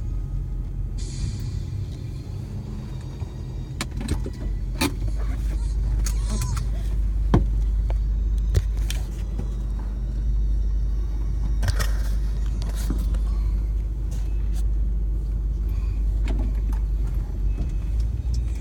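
Cabin sound of a vehicle driving slowly on a gravel road: a steady low engine and road rumble, with scattered short knocks and rattles.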